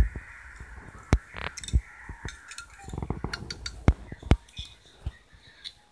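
A handful of sharp knocks and clinks from cups and a utensil being handled on a table, with short scraping in between. The loudest knocks come about four seconds in.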